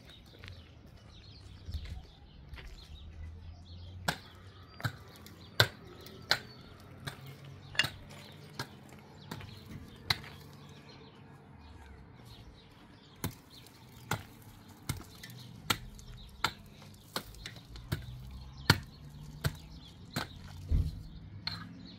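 A series of sharp knocks or blows, about one every second with a few pauses, starting about four seconds in, over a faint low rumble.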